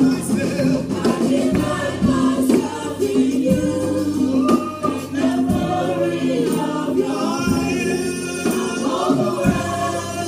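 Gospel choir and worship singers singing over a live church band, with a steady bass and regular drum hits.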